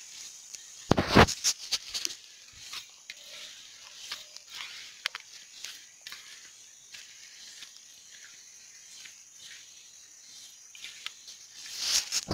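Handling sounds of feed being pushed into a perforated PVC pipe fish feeder: a sharp knock about a second in, then scattered small clicks and rustles, over a steady high hiss. Near the end a louder rustle, like a plastic bag being handled.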